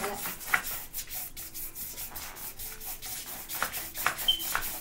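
A large paintbrush scrubbing paint across paper on a wall, in repeated brisk back-and-forth strokes with a dry, hissing rub.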